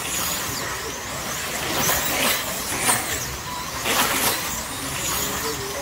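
Electric slot cars racing around a large multi-lane track, each one going past with a brief whine that sweeps in pitch, about once a second, over the steady hum of the others running around the circuit.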